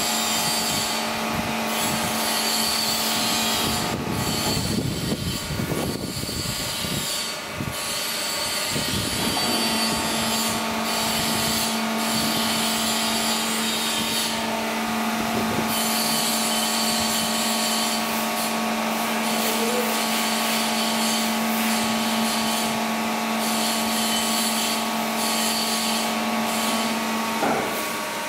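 Plate rolling machine running while rolling 10 mm steel plate into a pipe: a steady machine hum with a strong pitched tone. About four seconds in the tone breaks off for several seconds and a rougher grinding noise takes over, then the hum resumes; a brief rising whine comes near the end.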